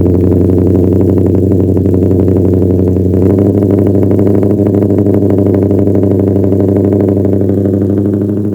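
Dodge Charger R/T's 5.7-litre HEMI V8 running at a steady idle just after a cold start, its exhaust loud and even with no revving.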